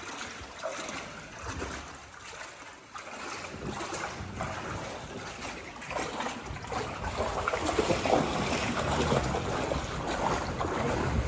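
River water trickling and splashing around inner tubes floating down a cave river, getting louder about halfway through.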